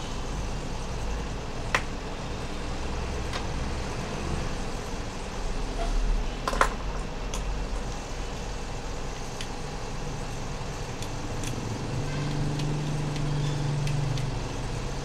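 Steady low background rumble with a few sharp clicks, one about 2 s in and a louder one near the middle. The rumble swells slightly near the end.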